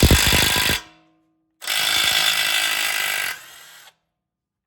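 Milwaukee M12 2564-20 3/8-inch right-angle cordless impact wrench hammering on a tie rod nut in two bursts: a short one of about a second, then a longer run of nearly two seconds that trails off.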